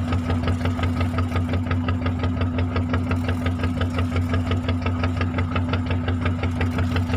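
Fishing boat's engine running steadily, with a fast, even knocking beat over a low hum.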